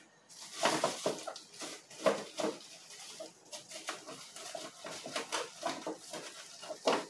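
Frozen sacolés (ice pops in plastic bags) being grabbed from a freezer shelf. There is an irregular run of crinkling plastic and small knocks as the hard frozen pops clack together, with louder handfuls about two seconds in and near the end.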